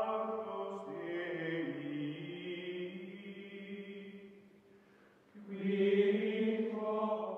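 Background music of long, held, layered notes. The music fades away about four seconds in, then a new, louder held chord begins.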